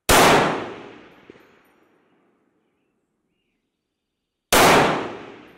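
Two rifle shots from a MAS 49/56 semi-automatic rifle in 7.5×54mm French, one at the start and one about four and a half seconds later. Each shot fades out over a second or two.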